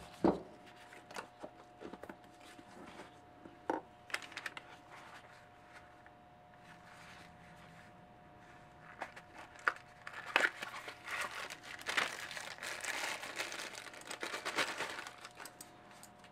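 A freewheel sprocket being unboxed and unwrapped by hand: a few knocks of parts set down on the bench, then a stretch of packaging crinkling and tearing that begins about two-thirds of the way through and lasts several seconds. A faint steady hum runs underneath.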